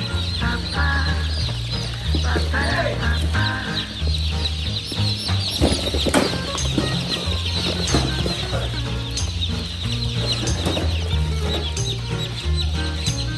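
A large crowd of newborn chicks peeping continuously, many short high chirps overlapping, over background music with a stepping bass line.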